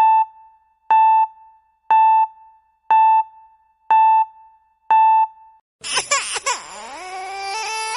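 Six short electronic beeps, one a second, each a single steady tone. From about six seconds in, a longhaired kitten mews loudly, its pitch dipping and then climbing.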